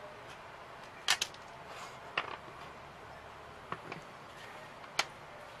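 Light clicks and taps of laser-cut 3 mm MDF model parts being handled and set down on a work table. There are about six short, sharp clicks, a close pair about a second in and the sharpest near the end, over a steady low hiss.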